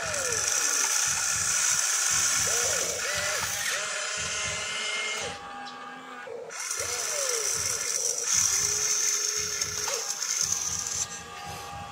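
An RC excavator's small electric motors and gearboxes whirring with a steady high whine as the boom, arm and turret move, the pitch gliding up and down with the load. The whine stops briefly about five seconds in and again near the end.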